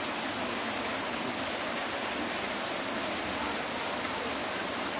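Running water rushing steadily, an even hiss with no breaks.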